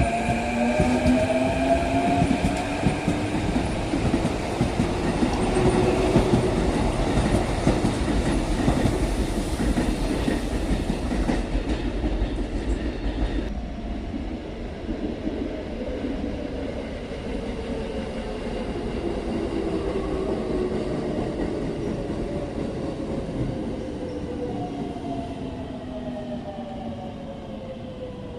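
Electric train running past, its traction motors whining in a pitch that rises in the first few seconds, with the rumble and clatter of wheels on the rails. It grows quieter after about 13 seconds, and near the end a motor whine falls in pitch as a train slows.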